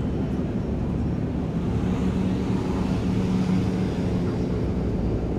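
Steady low rumble of a large ferry's machinery at the quay, sped up to double speed, with a faint hum that grows stronger in the middle and fades again.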